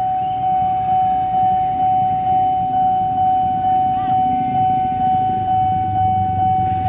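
Railway level-crossing warning alarm sounding with the barriers down, warning of an approaching train: a steady high tone that pulses about twice a second. Idling motorcycles and traffic rumble underneath.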